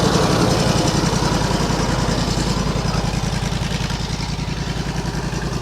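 Portable bandsaw mill running with its gas engine at a steady pace and the band blade spinning; a higher hiss above the engine eases off about halfway through.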